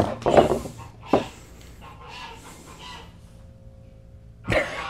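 Geese honking in a series of separate calls, the loudest one near the end.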